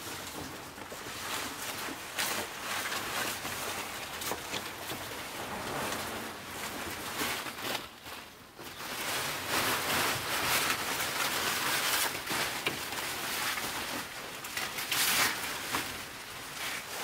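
Mulberry branches and leaves rustling as they are handled and spread over silkworm beds, over a steady rain-like patter of many silkworms chewing the leaves. The sound dips briefly about halfway through, then grows louder.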